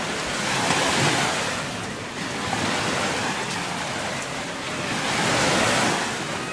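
Small Gulf of Mexico waves breaking and washing up the beach, a steady rush of surf that swells about a second in and again near the end.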